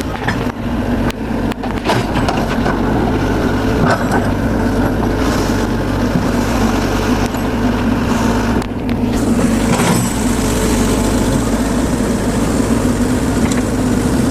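Excavator's diesel engine running steadily under work, with scattered short knocks and cracks.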